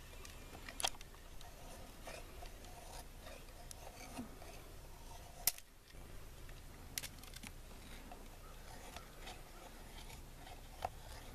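Knife blade shaving and scraping along a wooden stick to raise fire-lighting shavings: faint scraping with a few sharp clicks, the loudest about halfway through.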